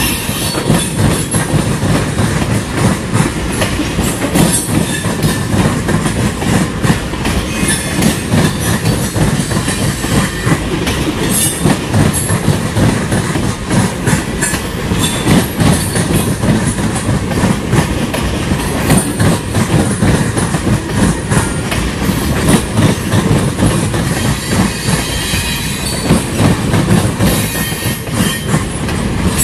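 Tank cars of a long freight train rolling past: a continuous rumble of steel wheels on rail, with frequent sharp clicks and clacks as the wheels cross rail joints.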